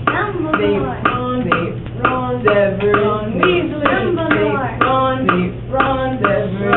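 Young voices chanting a rhythmic, layered a cappella song, with sharp percussive clicks between the words.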